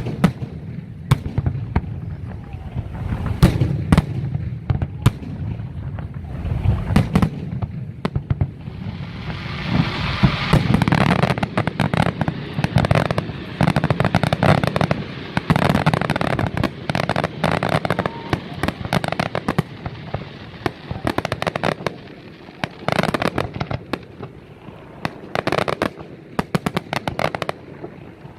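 Fireworks display: aerial shells bursting with sharp bangs throughout. From about nine seconds in, a dense stretch of crackling and rapid reports builds, then thins out to scattered bangs after about twenty seconds.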